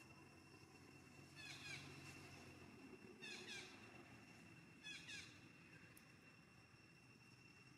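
Faint animal calls: three groups of two or three short, high chirps that fall in pitch, a second or two apart, over a faint steady high tone.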